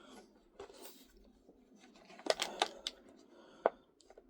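Plastic food packaging handled: a few sharp clicks and taps with light rustling as the cheese is worked out of a Lunchables plastic tray, the loudest click near the end.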